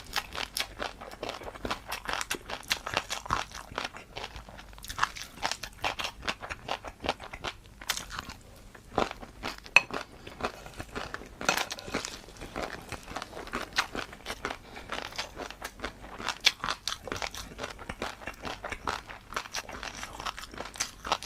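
Close-miked eating of crunchy food: dense, irregular crunching and chewing, with one sharper crack about ten seconds in.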